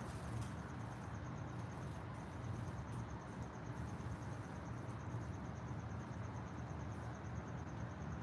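Insect trilling: a faint, steady, rapidly pulsing high-pitched trill, over a low steady rumble.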